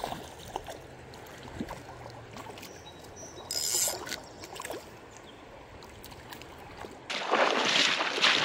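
Rippling river water with small splashes from a hooked trout at the surface, and a short louder splash about three and a half seconds in. About seven seconds in, sudden loud, continuous splashing of waders striding through shallow river water.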